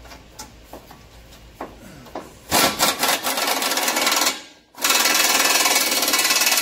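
Pneumatic air tool running a bolt at a pickup's torsion bar and lower control arm, in two loud rattling bursts: the first starts about two and a half seconds in and lasts under two seconds, the second follows a short pause and runs on steadily. A few light metal clicks come before.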